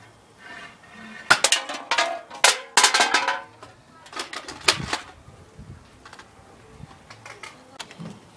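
Empty drink cans being shot and knocked over on a wooden box lid: a run of sharp knocks and hollow metallic clatters, bunched about one to three seconds in and again near five seconds, with short ringing after the strikes.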